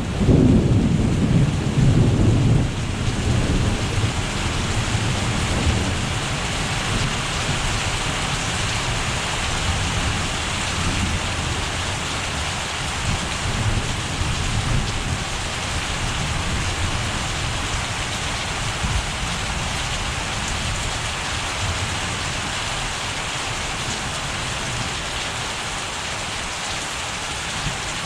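Thunder rumbling over heavy rain, loudest right at the start and dying away over the first few seconds, leaving a steady downpour.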